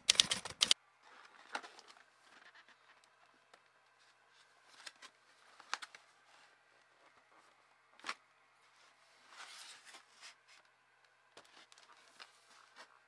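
A loud burst of rapid typing clicks in the first second, then the cardboard box of a plastic model kit being handled and turned over: faint rustles, scrapes and light taps of cardboard against hands and table.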